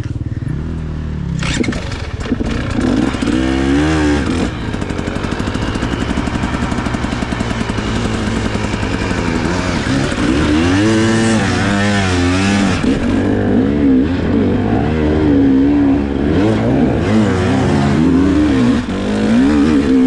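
Dirt bike engine revving hard under load, its pitch sweeping up and down repeatedly as the throttle is worked.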